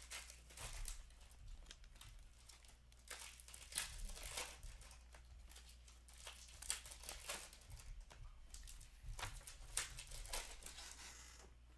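Upper Deck hockey trading cards being handled and flipped through by hand: irregular dry flicks, slaps and rustles of card stock against card.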